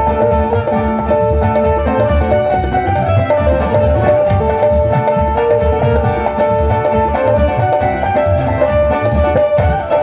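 Loud Punjabi song with a steady drum beat under a sustained melodic line, played for a sound check.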